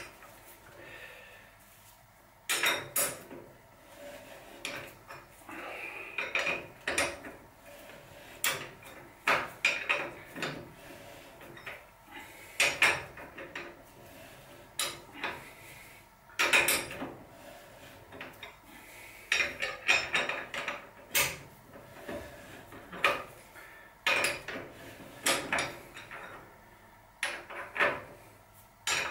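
Metal clinks and clatter of a spanner and bottom bracket tool being worked and repositioned as a threaded bottom bracket cup is unscrewed from the frame, with irregular sharp clanks every second or two.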